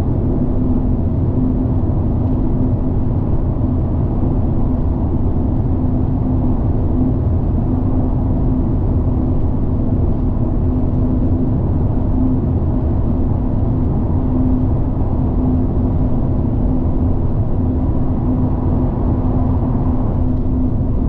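Steady in-cabin running noise of a Mazda ND Roadster cruising at expressway speed: engine drone with a steady low hum, mixed with tyre and road noise.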